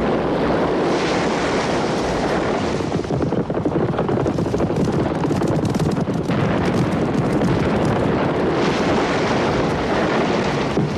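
Film battle sound of a cavalry raid on a camp: a continuous loud rumble of galloping horses and explosions, with many short sharp cracks, most of them in the middle stretch.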